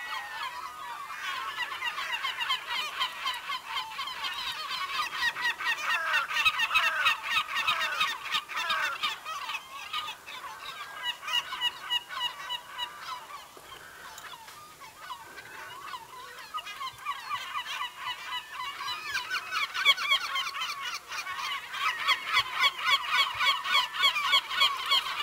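A large flock of birds calling, many short calls overlapping into a dense chorus, thinning out around the middle and building up again for the last several seconds.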